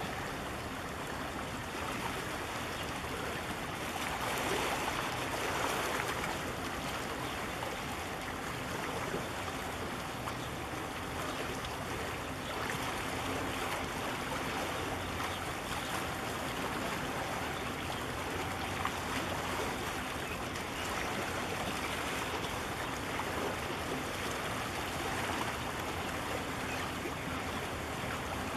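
Steady rushing wash of harbour water against concrete breakwater blocks as a large container ship passes close by, with a faint steady hum underneath.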